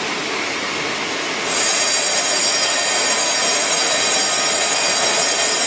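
Automatic cylinder TIG welding machine running with a steady hiss. About a second and a half in, it steps up into a louder, high-pitched whine that holds.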